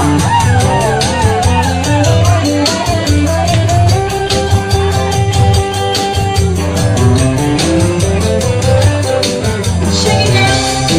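Music with guitar and a steady beat, a melody line holding long notes through the middle.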